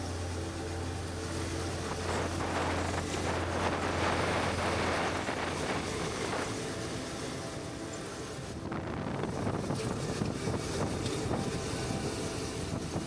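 Suzuki V-Strom 650 motorcycle on the move: a low, steady engine drone mixed with wind rushing over the microphone. The wind noise swells for a few seconds, and the steady drone drops away about halfway through.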